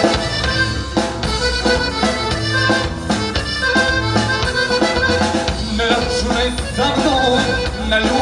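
Instrumental Balkan folk music led by accordion over a steady bass beat.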